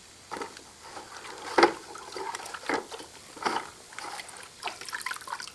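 Water from an electrolysis bath splashing and dripping back into the tub in irregular splashes as the rust-covered cast-iron shear part is lifted out.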